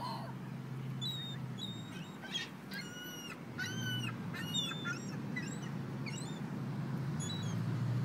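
A flock of gulls calling: a string of short, harsh cries, thickest around the middle, over a steady low hum.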